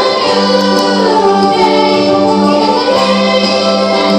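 A choir of children and adults singing together, holding long notes that slide from one pitch to the next.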